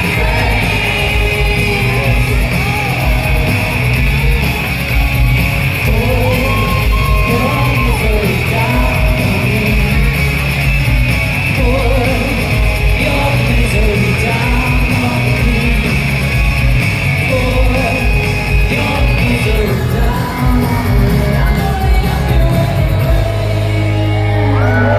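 Live rock band playing with a lead vocal, heard through a concert hall's PA from the audience. Near the end the high guitar wash drops out and a steady low note holds.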